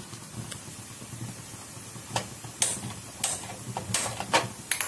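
Prestige pressure cooker letting out short hissing puffs of steam at its weight valve as the pressure builds toward a whistle. The puffs come closer together after about two seconds.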